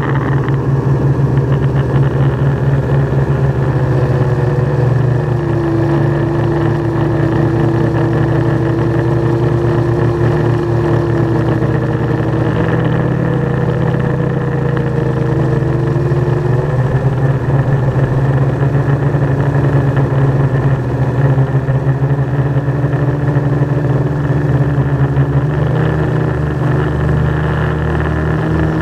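Quadcopter drone's electric motors and propellers buzzing steadily in flight, heard up close from the camera on board. The whine shifts in pitch, dipping lower for a stretch in the middle and rising again, as the drone manoeuvres.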